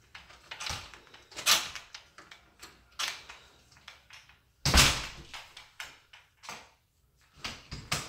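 Footsteps and knocks on a hardwood floor in an empty room: about six irregular thumps, with one heavier, deeper thud a little past halfway.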